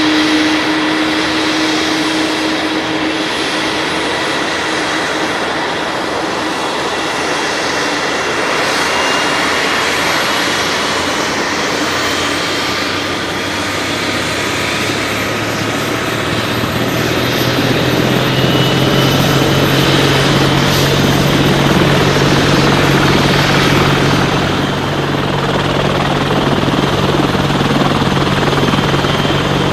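Small electric RC helicopter flying overhead: a steady whine and whoosh of its motors and rotors, the pitch of the motor tones drifting up and down as it manoeuvres. A lower hum comes in about halfway through.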